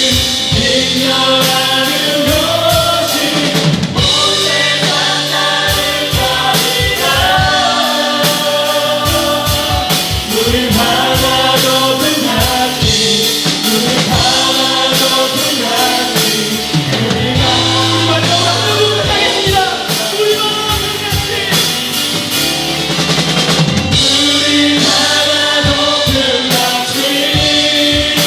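Live worship band music: voices singing a praise song over a drum kit, bass and keys.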